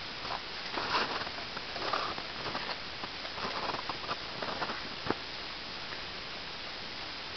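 Footsteps crunching in snow, irregular steps for about the first five seconds, then only a steady hiss.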